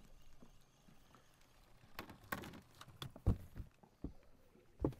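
A handful of hollow knocks and thumps in a metal fishing boat, as feet and gear bump the deck and hull: half a dozen short knocks starting about two seconds in, the loudest a little past the middle.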